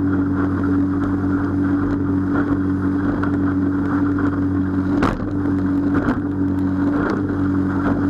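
Small outboard motor running steadily at speed, pushing a Gheenoe through choppy water, with water rushing along the hull. A single sharp thump about five seconds in, as the hull slams into a wave.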